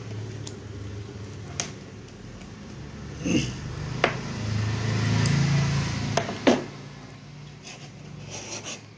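A few sharp clicks and knocks as a digital multimeter and a circuit board are handled on a hard bench, over a low hum that swells in the middle and then fades.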